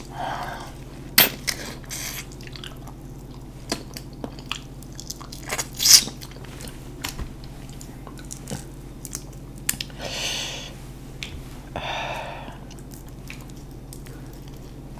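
Close-up eating sounds: shellfish shells being cracked and peeled by hand, giving scattered sharp snaps with the loudest about six seconds in, along with chewing and mouth noises. Two longer breathy sounds come near the end.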